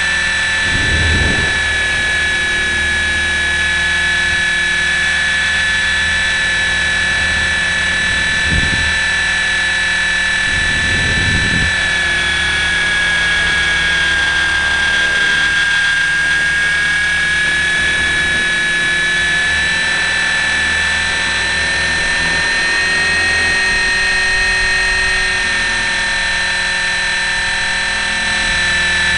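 A KDS 450Q electric RC helicopter's motor and rotor whining steadily in flight, picked up by the onboard camera. The pitch sags a little midway and climbs back later, with a few brief low thumps.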